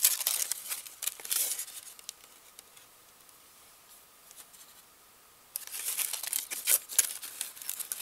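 Aluminium foil crinkling and rustling as it is unwrapped from a sandwich by hand, in two spells with a quiet pause of about three seconds between them.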